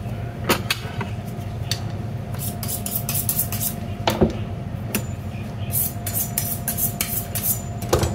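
Knives clicking and knocking as they are handled and laid down on a plastic chopping board, with light metal clatter and a firmer knock about four seconds in, over a steady low hum.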